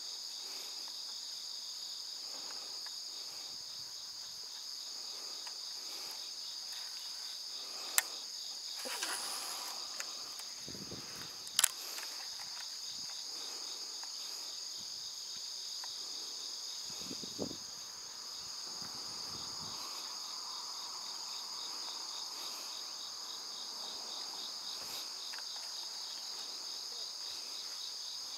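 A steady, high-pitched chorus of insects chirring, with two sharp clicks about eight and twelve seconds in.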